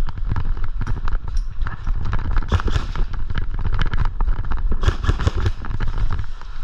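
Footsteps and gear clatter of a player running, a dense run of sharp knocks and thuds over a heavy rumble on the microphone.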